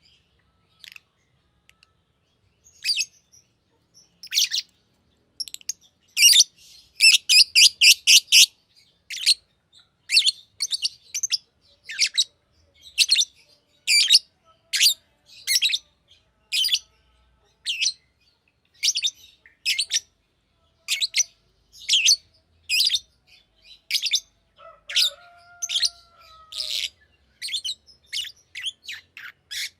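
Green lovebird chirping: a long string of short, sharp, high chirps, with a quick rapid-fire run a few seconds in.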